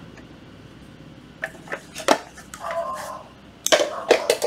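Hard plastic cordless power tools knocking and clattering against each other and a tile floor as a band saw is handled and set down among them. There are a few light knocks about a second and a half in, then a quick run of clatters near the end.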